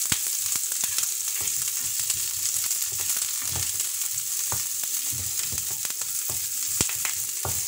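Chopped onion and curry leaves sizzling steadily in hot sesame oil in a frying pan while being stirred, with occasional clicks of the wooden spatula against the pan.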